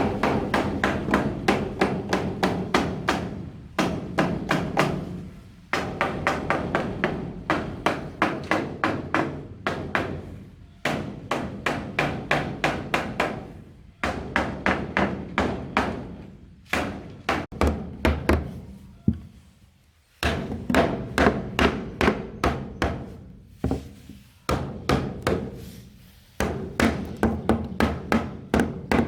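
A hammer driving nails into wooden planks: runs of quick, even blows, about five a second, each knock ringing briefly through the wood, with short pauses between runs.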